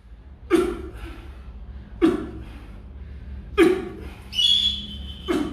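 Four short, sharp knocks at a steady rhythm of about one every second and a half, each trailing off briefly, over a low steady hum. A high steady tone sounds for about a second near the end.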